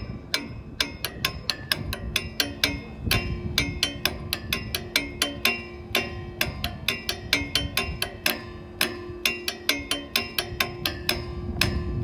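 Bronze Time and Tide Bell struck by hand with two metal rods in a fast, steady run of about four to five strikes a second, its tones ringing on beneath the strikes.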